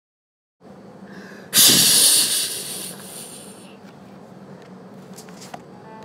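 A sudden loud hiss like air rushing out of a punctured tyre, starting about a second and a half in and fading over about two seconds, after a brief moment of silence.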